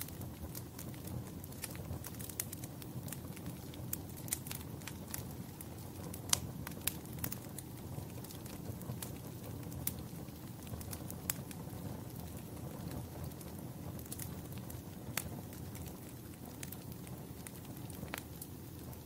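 Fire in a fireplace crackling: irregular sharp pops and snaps over a steady low rumble of the flames, with a louder pop about six seconds in.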